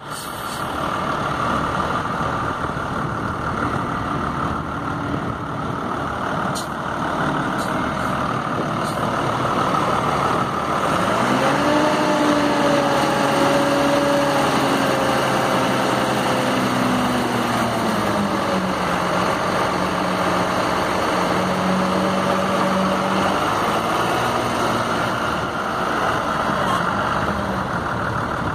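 Cummins ISB 5.9 L diesel engine of a yard tractor running, revved up about a third of the way in, held at the higher speed for several seconds, then easing back down to a steady lower speed.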